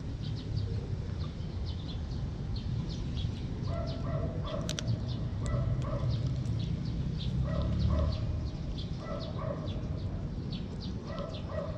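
Cat eating from a coconut-shell bowl right beside the microphone, with close chewing and licking clicks. From about four seconds in, an animal calls in the background with a short two-note call repeated about every two seconds.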